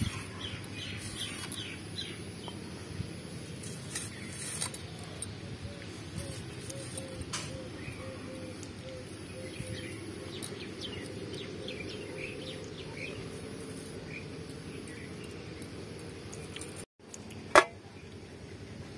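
Birds chirping over a steady low background hum, with a few soft clicks as star fruit is sliced on a boti blade. Near the end there is one sharp, loud knock.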